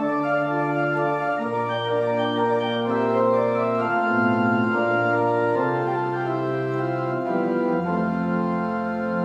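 Organ playing slow sustained chords over low pedal bass notes, the harmony changing about once a second. Near the end it settles on a long held chord over a deep pedal note.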